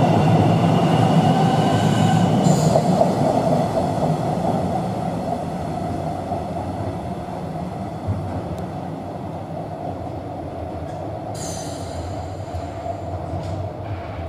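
Melbourne suburban electric train running along an underground station platform, a steady rumble that fades as it moves off, with a thin wheel squeal that stops about two and a half seconds in. Then an X'Trapolis train approaches out of the tunnel with a quieter rumble and a short high wheel screech about three seconds before the end.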